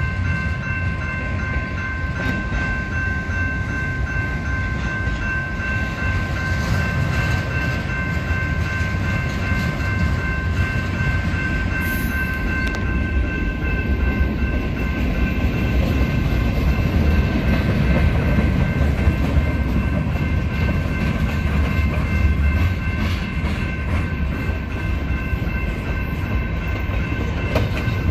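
Freight cars rolling through a level crossing, a steady rumble of wheels on rail. Over it the crossing's General Signals Type-2 electronic bell rings without pause.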